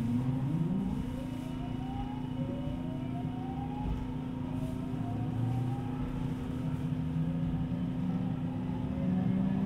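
JR West 207 series electric train's VVVF inverter and traction motors whining as the train accelerates away from a station: a series of rising tones, each climbing and giving way to the next, over a steady hum and rumble of the running gear, heard from inside the car.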